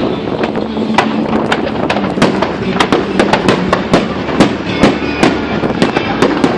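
Aerial fireworks going off in rapid succession: many sharp bangs and crackles, several a second, over a continuous din.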